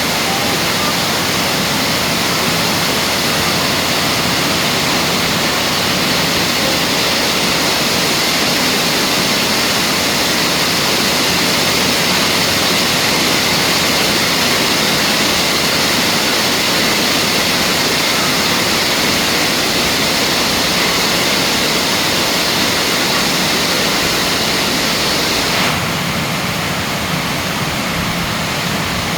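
Heavy rain pouring down in a steady, loud hiss during a storm, easing slightly near the end.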